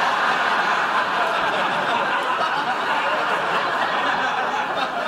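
Studio audience laughing, one long sustained wave that eases off slightly near the end.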